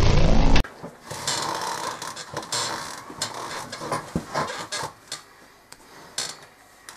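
Loud music cuts off abruptly about half a second in, leaving irregular rustling with scattered small clicks and knocks.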